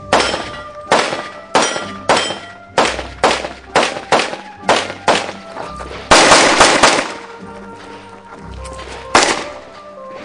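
Handgun shots fired in a practical shooting stage: a string of about ten shots roughly half a second apart, then a rapid cluster of shots about six seconds in and a single shot near the end. Background music plays under the shots.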